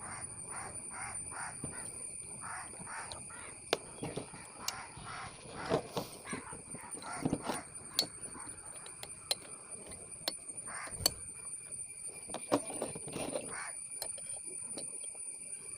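Crows cawing repeatedly in short runs. Several sharp clicks and knocks of hand tools on the chainsaw's metal engine parts sound among the calls.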